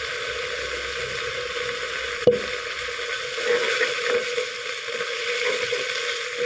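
Chaya (Mexican tree spinach) stir-frying in a granite-coated wok with oyster sauce, sizzling steadily while a metal spatula stirs and scrapes through the leaves. One sharp tap about two seconds in.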